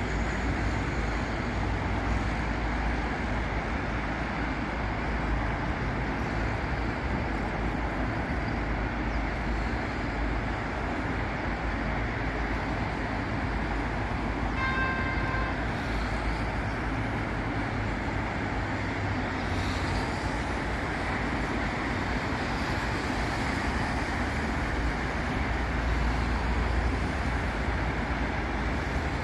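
Steady heavy road traffic on a busy city avenue, a constant rumble of passing cars and buses, with one short car-horn toot about halfway through.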